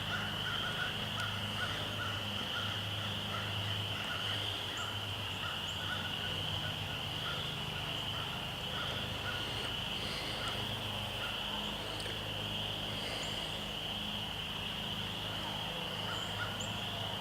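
Steady high-pitched insect chorus, with a faint repeating chirp and a low hum that swells and fades every few seconds.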